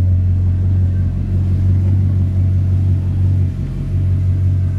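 Bugatti Chiron Pur Sport's 8.0-litre quad-turbocharged W16 engine idling steadily, a low, even sound with no revs.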